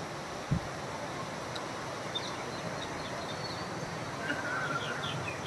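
Steady rushing noise of a swollen, fast-flowing flooded river with wind on the microphone, and a low bump about half a second in. From about two seconds in, small birds chirp repeatedly with short, high, falling notes.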